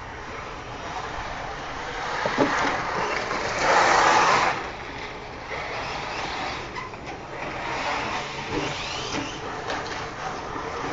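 Two 1/8-scale RC buggies, an Associated RC8.2 and an OFNA Jammin, running on a dirt track, with motor whine and tyre noise that rises and falls. A louder rush of noise comes about four seconds in.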